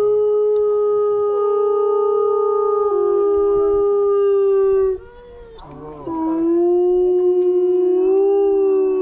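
Wolves howling: one long, steady howl, joined briefly by a second, lower voice about three seconds in. Short broken calls follow, then another long howl starts about six seconds in and sinks slightly in pitch at its end.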